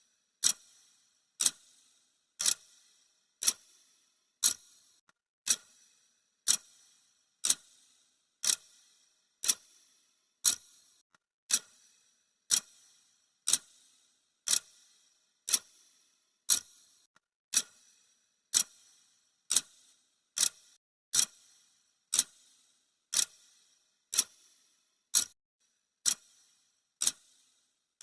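Clock-ticking sound effect of a countdown timer: one short, sharp tick every second, steady and even.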